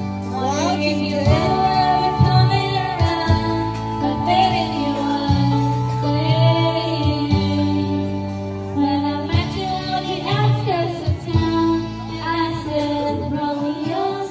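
A woman singing into a microphone over an amplified karaoke backing track, the voice wavering in pitch above steady held bass notes.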